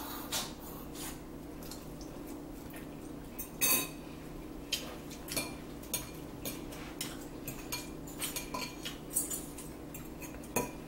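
Metal fork clinking and scraping in a bowl of spinach salad, an irregular run of light taps with one louder clink about three and a half seconds in, over a steady low hum.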